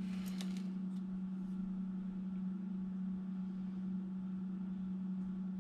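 A short clatter of a plastic model-kit sprue being handled and turned over, a few sharp clicks a fraction of a second in and one more about a second in, over a steady low hum.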